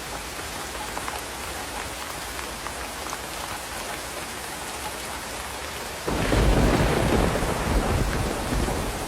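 Heavy rain drumming steadily on the tarp-covered roof of an electric-tricycle camper. About six seconds in, a loud low rumble sets in over the rain and keeps going.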